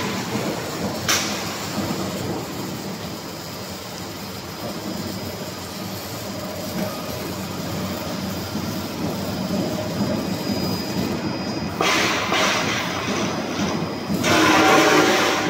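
Box beam roll forming machine running: a steady rumble and clatter of the forming rolls and drive, with a sharp click about a second in. A louder rushing hiss comes about twelve seconds in and again near the end, as the formed steel box beam comes off the line.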